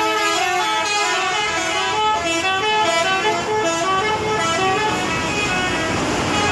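Indonesian bus 'telolet' horn playing a quick tune of short notes that step up and down, several pitches sometimes sounding together, stopping about five and a half seconds in.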